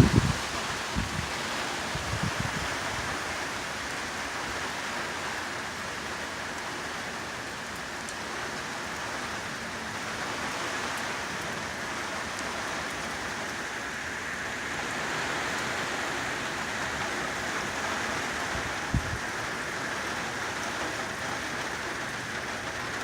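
Steady rain falling, an even hiss, with a single brief thump near the end.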